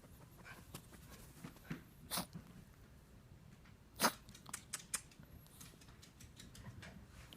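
A pet sneezing: two short, sharp sneezes about two seconds apart, the second the louder, followed by a few small clicks.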